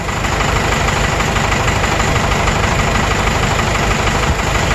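Cummins 4BT 3.9-litre turbo diesel of a Vermeer SC1102 stump grinder running steadily and loud. The engine has heavy blow-by that the mechanic judges to need new piston rings.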